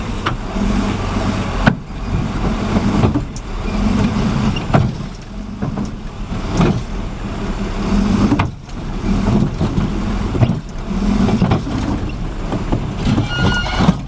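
A heavy machine's engine running, its low rumble swelling and easing every second or so, with a few sharp knocks.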